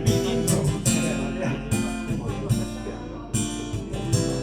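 Acoustic guitar strumming chords, a song's instrumental intro before the singing comes in.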